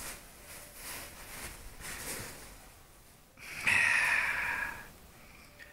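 A pug snorting and breathing noisily through its short, flat-nosed airway, a run of short breaths one after another. About three and a half seconds in comes a louder, drawn-out sound lasting over a second.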